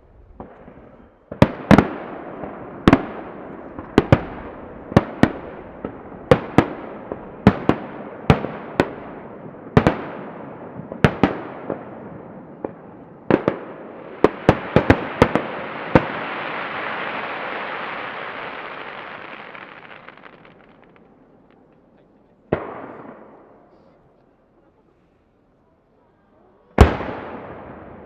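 Aerial firework shells bursting about 450 m away, a quick run of sharp booms about one a second, each trailing off in an echo. An even hiss swells and fades over about six seconds, then two more single bursts follow, the last one loud near the end.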